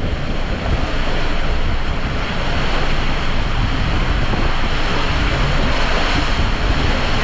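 Water coaster raft with two riders sliding through an enclosed flume tube, with water rushing and splashing around it in a loud, steady rush of noise.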